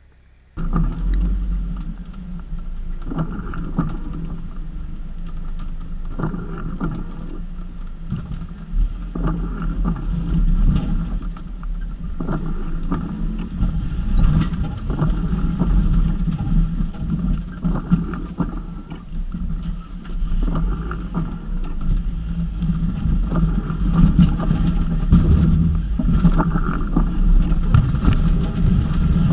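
Jeep Wrangler YJ's engine running steadily as it drives a rough dirt trail, with frequent knocks and clunks from the jeep over the uneven ground. The sound cuts in suddenly about half a second in.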